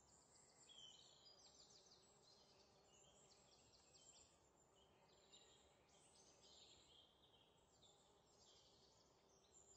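Near silence, with faint high-pitched chirps and trills repeating throughout.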